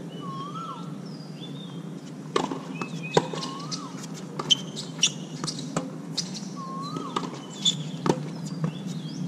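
Tennis rally on a hard court: sharp pops of the ball being struck by rackets and bouncing, several over a few seconds, the first about two seconds in. Birds call throughout with repeated rising-and-falling whistles and higher chirps.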